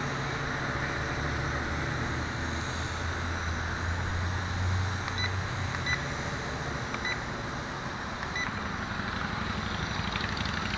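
WLtoys V262 quadcopter's motors droning steadily as it climbs, with a few short high beeps about halfway through.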